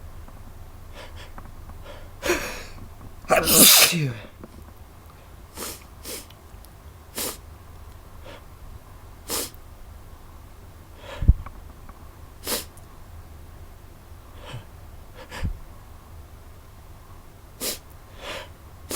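A person sneezing repeatedly. A big, loud sneeze with a falling voiced cry comes a few seconds in, followed by a string of short, sharp sneezes or breath bursts about every second or two. A sharp thump comes near the middle.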